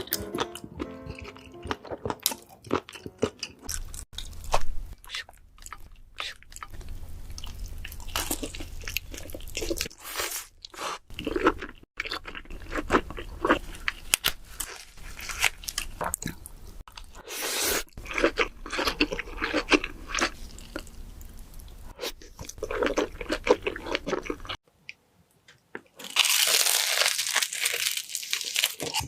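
Close-miked crunching of a person biting and chewing crispy food, many sharp crackles in irregular runs.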